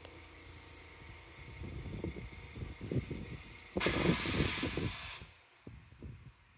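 Wind buffeting an outdoor phone microphone over a steady hiss. About four seconds in, a loud rush of noise starts suddenly and cuts off about a second and a half later.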